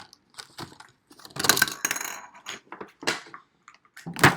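Plastic Play-Doh toys and tubs being handled: scattered clicks and clattering, a longer rattle about a second and a half in, and a loud knock near the end.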